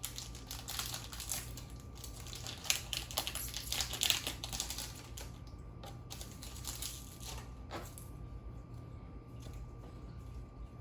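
Trading-card booster packs and cards being handled: a quick run of crinkles and clicks as a foil pack is opened and its cards flicked through, dying down to quieter handling after about seven seconds.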